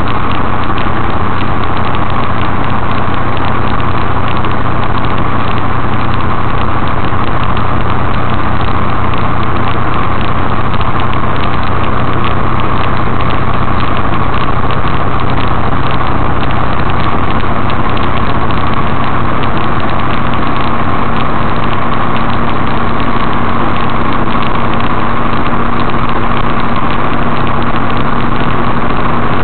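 Steady drone of a semi-truck under way, heard from inside the cab: engine hum mixed with road and wind noise. The engine note rises slightly near the end.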